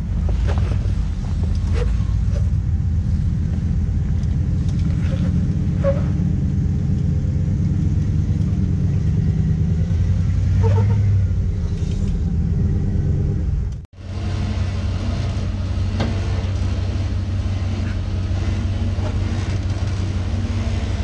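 Off-road 4x4's engine running at low revs in a steady low rumble, as a rock-crawling rig works slowly over rock. Near the middle it swells a little. About 14 seconds in, the sound breaks off for an instant and then resumes the same way.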